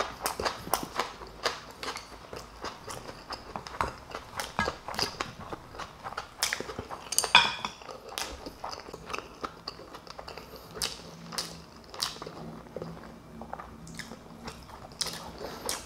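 Close-up chewing, biting and mouth clicks of someone eating a home-cooked Korean meal (rice topped with Spam and fried egg, with kimchi), as a run of short irregular clicks. A low steady hum comes in for a few seconds past the middle.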